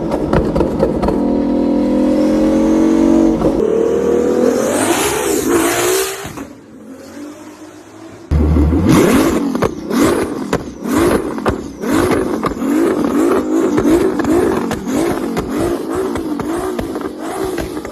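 Performance car engine held at high revs, rising sharply about five seconds in and then falling away. After a quieter moment, a loud stretch starts abruptly: rapid repeated throttle blips with many sharp exhaust pops and cracks.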